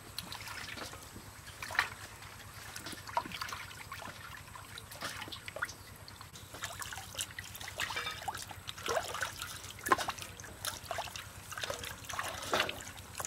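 Hands working in a metal basin of water: irregular small splashes, drips and sloshing, with a few light clicks.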